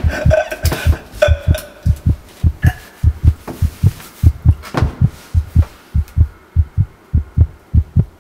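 A loud, fast heartbeat sound effect: paired low thumps, about one beat every 0.6 seconds. Over the first few seconds it comes with strained, gasping breaths that fade out, the choking of an asthma attack.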